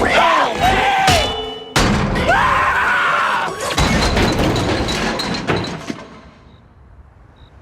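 Dubbed-in comedic sound effect: a sudden loud blast with gliding pitched tones, a second similar burst, then a crashing noise that dies away about six seconds in.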